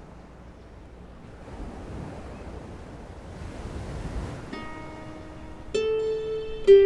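Ocean surf washing, with some wind, then about four and a half seconds in a Dusty Strings Allegro Celtic harp begins: three plucked notes, each left ringing, the second and third louder.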